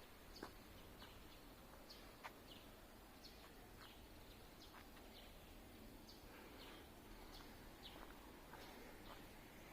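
Near silence: a faint outdoor background with scattered short chirps and ticks, about two or three a second.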